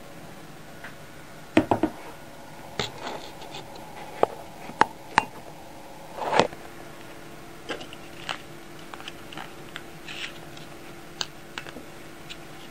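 Scattered light clicks and taps of wooden chopsticks against a ceramic dish, with the crinkle of a foil pouch of wet cat food being handled as the food is served out.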